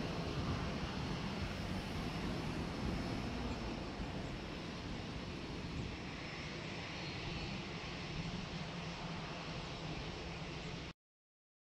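Jet engines of an Airbus A330-900neo (Rolls-Royce Trent 7000s) running at takeoff power as the airliner climbs away: a steady low rumble that eases slightly about four seconds in and cuts off suddenly near the end.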